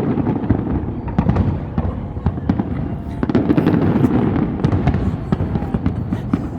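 Fireworks display in a dense barrage: rapid overlapping bangs and crackles over a continuous low rumble.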